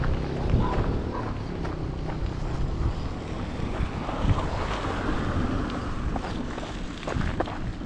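Wind buffeting the microphone in a dense, gusty low rumble, with a few scattered light taps. The noise swells for a couple of seconds about halfway through.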